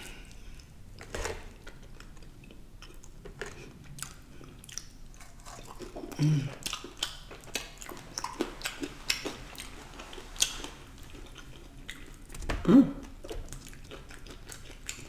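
Close-miked chewing and biting of food: a string of small, sharp mouth clicks, with a louder brief sound near the end.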